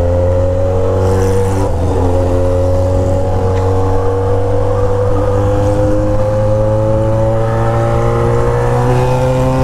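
Yamaha XJ6's inline-four engine through a straight-pipe exhaust, pulling steadily with its pitch slowly rising. There is a brief break about two seconds in, typical of a gear change.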